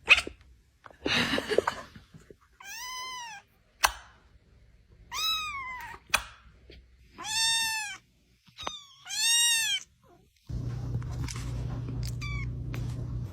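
A cat meowing four times, each call rising and then falling in pitch, with a few short clicks between the calls. A steady low hum starts near the end.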